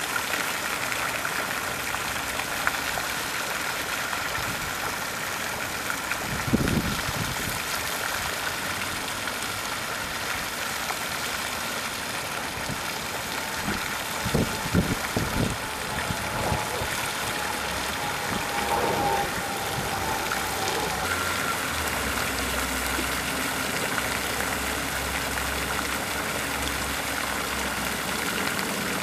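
Pond fountain jets spraying and splashing down onto the water, a steady hiss of falling water. A few brief low thumps come about a third of the way in and near the middle, and a low rumble joins in the last third.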